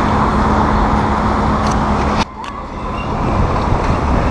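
City street traffic noise: passing vehicles with a steady low hum underneath. The sound drops abruptly about two seconds in, then builds again.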